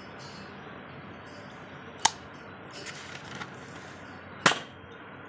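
Airsoft gun firing two sharp shots about two and a half seconds apart, with a few faint clicks between them over a steady hiss.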